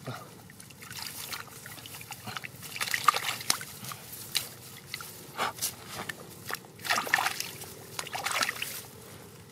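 Hands sloshing and splashing in shallow muddy water, in irregular bursts about every second, as someone gropes through the mud for fish by hand.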